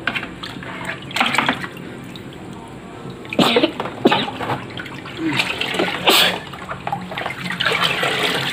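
Water poured from a plastic scoop into a plastic bucket of murky water, splashing in several separate bursts over a steady low hum.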